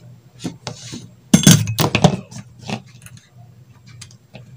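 Light clicks, taps and clinks of wire and small hand tools being handled on a workbench as stripped copper wire ends are twisted together, with a close run of sharper clicks about a second and a half in. A low steady hum runs underneath.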